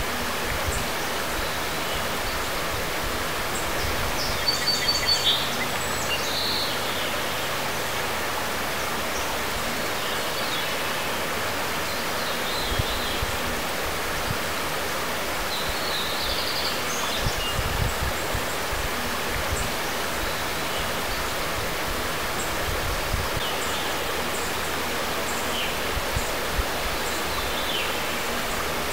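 Shallow river flowing over cobbles, a steady rush of water. Birds call now and then above it, most clearly about four to six seconds in and again around sixteen seconds.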